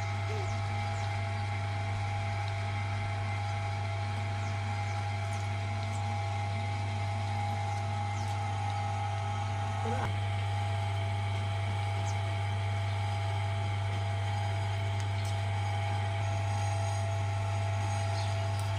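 Electric potter's wheel motor running with a steady low hum and a thin whine, while a small clay pot is thrown on it.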